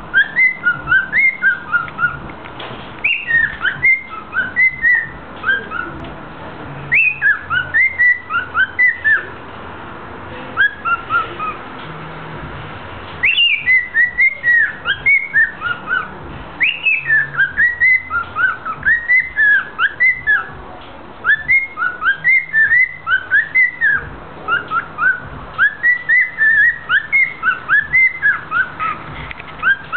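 Male cockatiel singing: a whistled song of quick rising and falling notes, in runs of a few seconds broken by short pauses.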